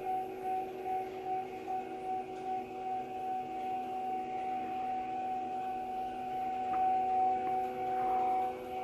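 Stepper-motor drive of a Cruse CS 185 ST RD planetary scanner moving its synchronized table at a steady speed during a continuous scan: a steady whine at several pitches at once.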